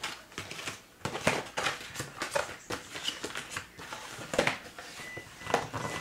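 A soccer ball being worked out of its cardboard box by hand: irregular rustling, scraping and tapping of the packaging.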